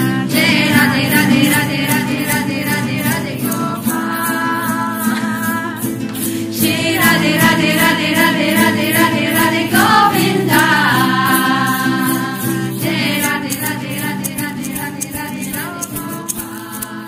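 A group of voices singing a devotional song together, with a shaker keeping a steady beat over a sustained low accompaniment.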